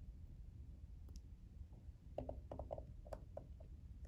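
Faint metallic clicks of a small screwdriver prying the steel wraparound retaining clip out of its groove at the back of a Yale large format interchangeable core's plug: one click about a second in, then a quick cluster of clicks about two seconds in.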